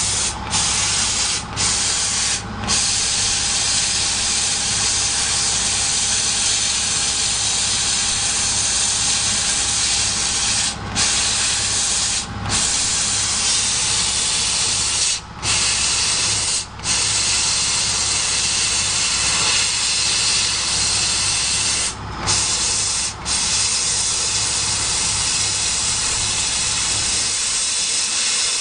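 CO2 laser cutting machine cutting 4 mm wood: a steady hiss over a low hum, the hiss briefly cutting out several times.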